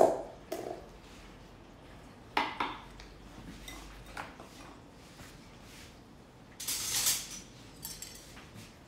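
Kitchen utensils and dishes clinking and knocking: a sharp metal clack at the start, a few lighter knocks, and a longer clatter about seven seconds in.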